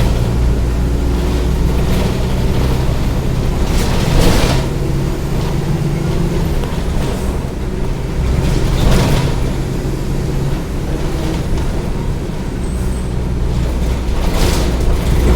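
Diesel engine of a Mercedes-Benz OF-1722M city bus running while the bus drives, its low drone rising and easing. Short bursts of noise come about every five seconds.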